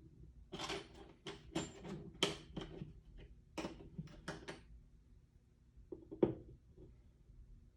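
Steel transmission gears and parts handled and set down on a workbench: a quick run of metal clicks and clunks in the first few seconds, a few more around the middle, and one louder knock about six seconds in.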